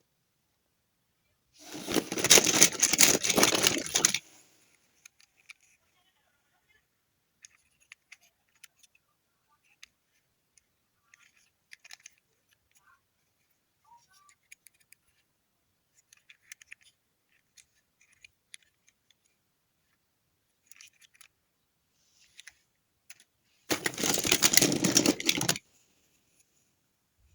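Toy car packaging being opened and handled: two loud bursts of tearing and rustling, about two seconds in and again near the end. Between them come scattered faint clicks and small rattles of plastic and small metal parts.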